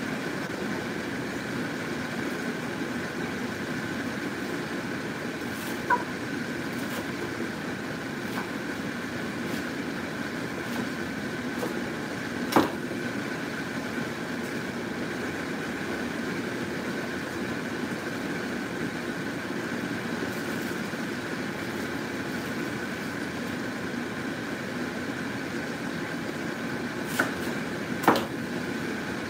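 A pot of broth boiling on the stove, a steady bubbling hiss and rumble. A few sharp pops stand out, the loudest just before the end.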